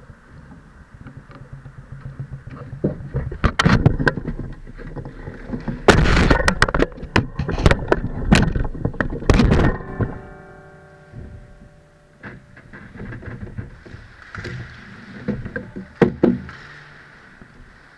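Airsoft skirmish: a rapid flurry of sharp clicks and knocks from gunfire and BBs striking cover, densest in the middle. The flurry is followed by a briefly ringing tone and, near the end, a hiss with a few more knocks.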